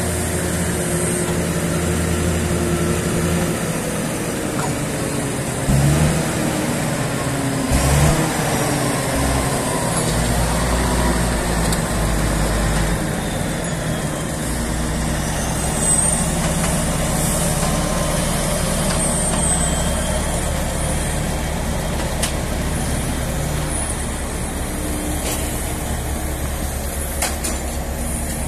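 Boom truck's diesel engine running steadily to drive the hydraulic knuckle-boom crane, its note shifting as the boom is worked. Two louder knocks come about six and eight seconds in, and there are a few brief high squeaks later on.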